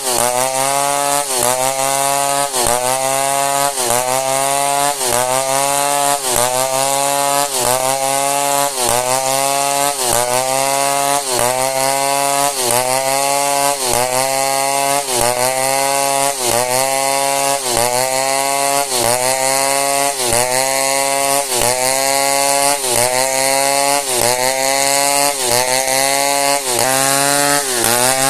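Two-stroke chainsaw cutting through old merbau hardwood. The engine's pitch dips under load and climbs back about once a second, over and over.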